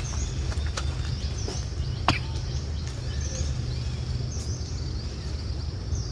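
Outdoor ambience: a steady low rumble with faint, short high chirps repeating about once a second, and a few sharp clicks, the loudest about two seconds in.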